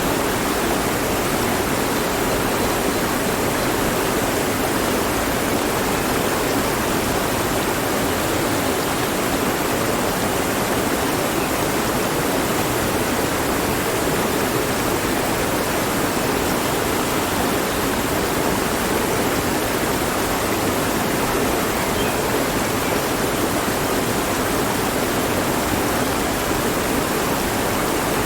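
Mountain stream running over rocks: a steady, even rush of water with no change.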